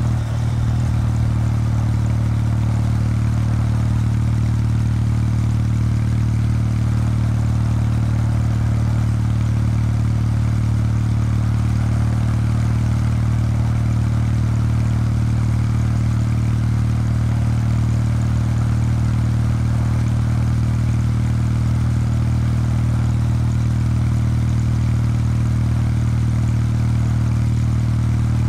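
Kawasaki W800 Street's 773 cc air-cooled parallel-twin engine running through its stock exhaust while riding, holding a steady engine speed, with the note dipping briefly about half a second in.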